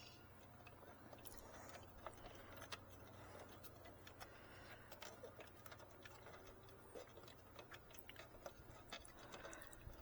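Faint, irregular small clicks and ticks from screw caps being threaded and tightened by hand onto a light fixture's mounting bolts.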